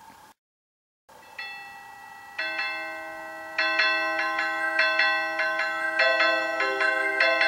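Aurora Sound-style electronic chime melody, in bell-like ringing notes. After a brief silence near the start, a few sparse notes sound, then a quicker run of overlapping notes begins about three and a half seconds in.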